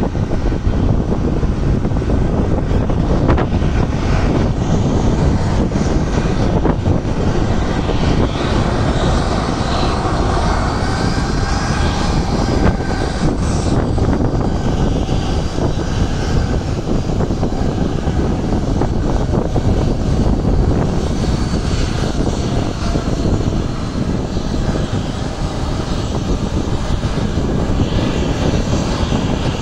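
The CFM56-7B turbofan engines of a Boeing 737-700 running loudly and steadily, a dense rumble with a fainter whine above it.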